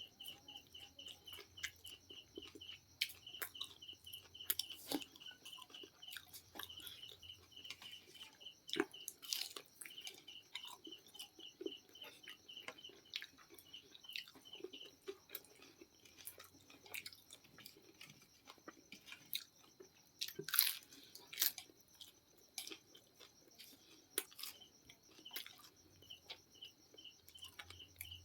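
Crisp-coated fried chicken being bitten and chewed close to the microphone: many irregular crunches and wet chewing sounds.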